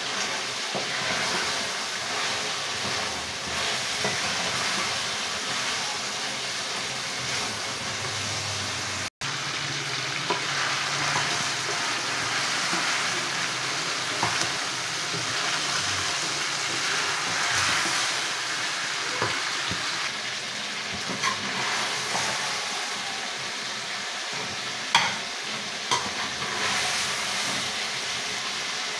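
Chicken pieces sizzling and frying in a metal karahi over a gas flame while a spatula stirs and scrapes them. A few sharp knocks of the spatula against the pan come near the end. The sound cuts out for an instant about nine seconds in.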